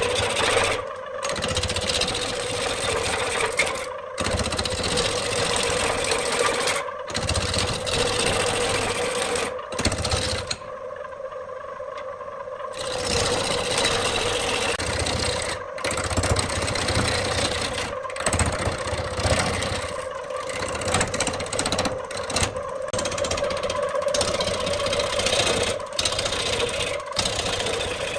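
Wood lathe running with a steady hum while a hand-held gouge cuts into a large spinning wooden blank, giving a rough, continuous cutting noise as chips are torn off. The cutting noise eases off for a couple of seconds just under halfway through, then picks up again.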